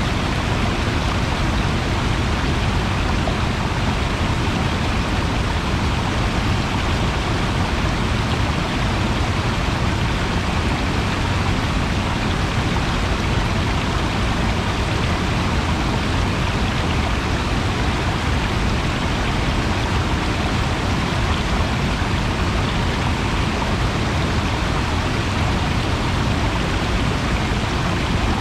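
Steady rush of flowing water, loud and unchanging.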